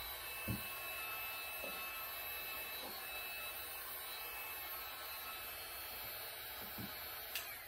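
Handheld heat gun blowing steadily on an adhesive repair patch on a plastic poly tank, heating it to drive the adhesive's bonding reaction. A few soft knocks of handling sound over the steady blowing.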